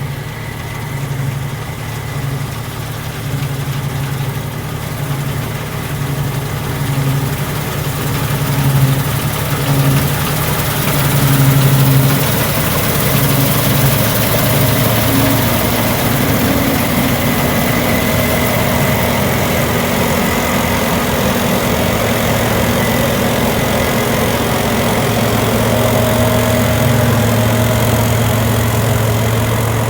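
Threshing machinery at work: an engine runs steadily under the noise of the threshing mechanism, its low hum pulsing unevenly at first and settling into a steady note from about twelve seconds in.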